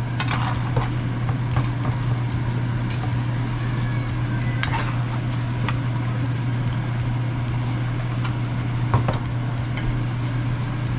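A steady low hum with a few short clicks and knocks scattered through it, at about 0.2, 1.6, 4.7, 5.7 and 9 seconds.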